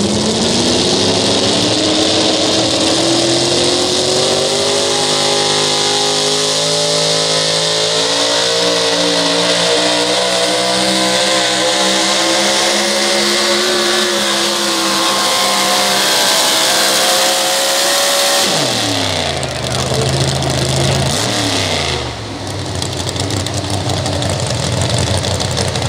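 Four-wheel-drive pulling truck's supercharged engine at full power under load as it drags the sled. It climbs in pitch over the first few seconds, then holds at high revs with a loud hiss on top for about eighteen seconds. The revs then fall away sharply as the pull ends, with a couple of falling blips after.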